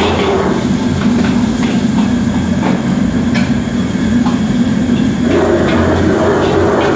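Steady, loud rushing noise of a commercial gas wok burner and the kitchen extractor hood running, with scattered short metallic clanks of the wok and ladle.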